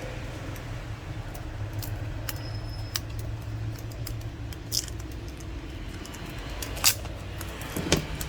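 Small clicks and taps of tools and smartphone parts being handled during disassembly, with a few sharper clicks in the second half, over a steady low hum.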